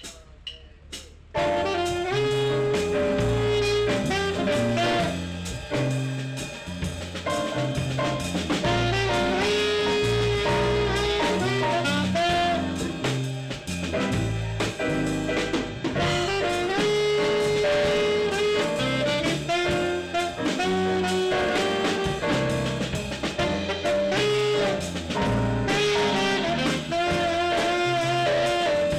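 A small jazz band playing a blues live: saxophone carrying the melody over electric keyboard, bass and drum kit. The band comes in about a second and a half in, after a short quiet opening.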